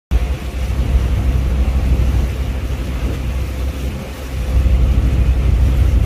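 Low, steady rumble of a car ferry under way on the water, with wind buffeting the microphone and a faint steady hum running through it.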